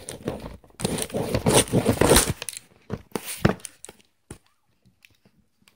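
Cardboard shipping box being handled and torn open: a burst of scraping, tearing and rustling about a second in, then a few sharp knocks, after which it stops.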